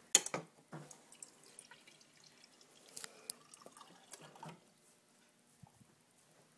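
Refrigerator door water dispenser running water into a hand-held glass, with dripping and splashing. A few sharp knocks of handling come in the first second.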